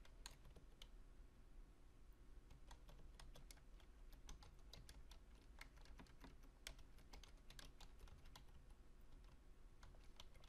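Faint typing on a computer keyboard, keystrokes coming in irregular runs.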